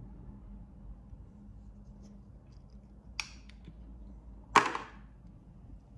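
Plastic blade cover being pulled off the T-blade of an Andis Slimline Pro GTX trimmer: a faint click about three seconds in, then a louder brief snap a second and a half later.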